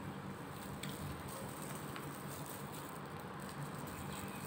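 Quiet eating at a table: a few faint clicks and small handling noises over a steady low background hum.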